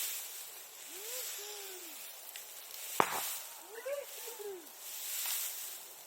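Bonfire burning with a pulsing hiss, and one sharp loud pop about three seconds in as something in the fire bursts. Twice, a low call rises and falls in pitch over the fire.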